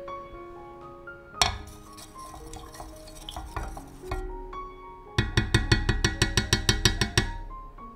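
A wooden stick stirring liquid glaze in a glass jug, knocking quickly against the glass at about eight taps a second for roughly two seconds near the end. One sharp knock comes about a second and a half in. Background music plays throughout.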